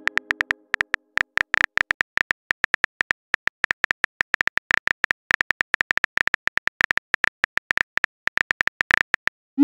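Phone keyboard click sound effects from a simulated chat app, several quick ticks a second as a message is typed out letter by letter. A short rising swoosh at the very end, the message-sent sound.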